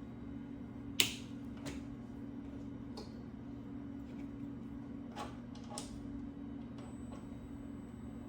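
Several sharp clicks, the loudest about a second in, over a steady low electrical hum from the test bench, while the inputs of a Kinetix 300 servo drive are being enabled for a load test.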